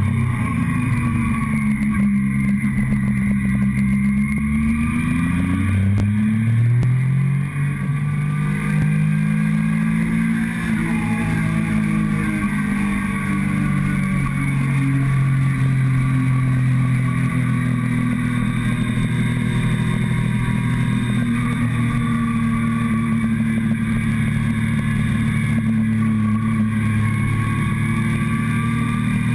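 Motorcycle engine heard from a tank-mounted camera while riding: the revs fall and climb again in the first few seconds, drop briefly about seven seconds in, as at a gear change, then hold steady at cruising speed, over a low wind and road rush.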